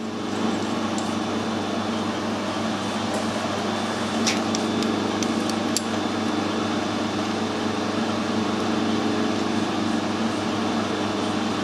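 Metal lathe running steadily, a constant machine hum with a few light clicks about four to six seconds in.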